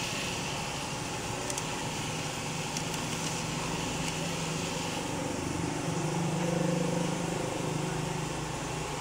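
A steady low mechanical hum over a wash of background noise, swelling slightly about six seconds in.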